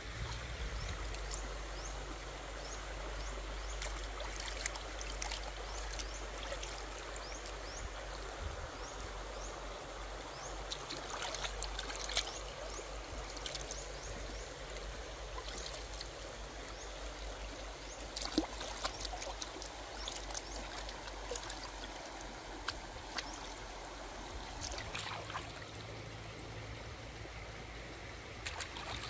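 Shallow rocky stream flowing steadily, with scattered small clicks over it.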